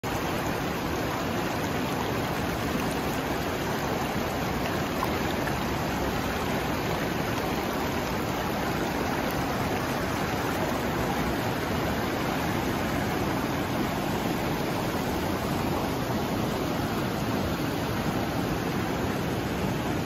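Lidder river gushing over and around boulders in shallow rapids: a steady, unbroken rush of white water.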